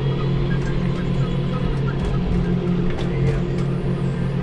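Tractor engine running steadily while driving, heard from inside the cab, with a few faint rattles about three seconds in.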